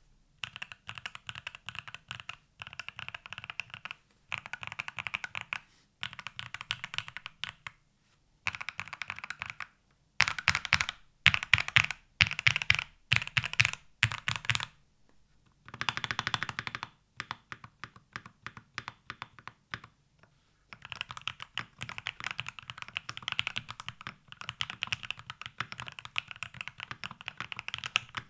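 Epomaker MagCore87 magnetic keyboard with Jade Pro magnetic switches, stock PBT double-shot keycaps and an FR4 plate, typed on in runs of rapid keystrokes with short pauses between them. The typing is louder for a few seconds around the middle.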